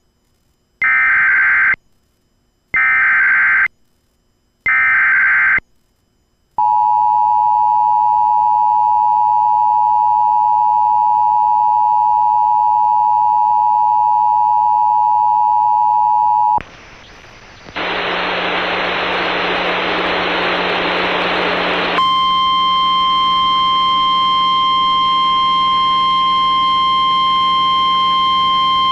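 An Emergency Alert System activation from a Sage ENDEC 1822. It opens with three short warbling data bursts of the SAME header, each about a second long. Then comes the steady two-tone EAS attention signal for about ten seconds. After a brief drop there are a few seconds of radio hiss, and about 22 seconds in a single steady alert tone starts, the NOAA Weather Radio 1050 Hz warning alarm tone, which carries on.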